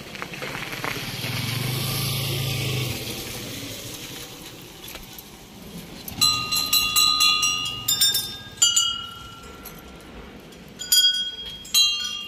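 A passing vehicle's engine hum swells and fades over the first few seconds. From about halfway on, a metal temple bell is struck again and again in quick runs, each strike ringing on with clear high tones.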